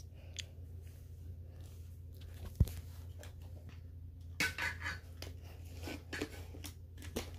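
Faint handling noise as plush toys are moved about on carpet and the phone is handled: scattered soft rustles and clicks, with one sharper click about two and a half seconds in, over a low steady hum.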